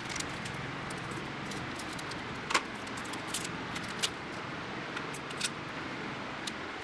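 Scattered light clicks and taps of a hand-held scraping blade and fingers against a patched racket frame, a few sharper ticks standing out, over a steady background noise.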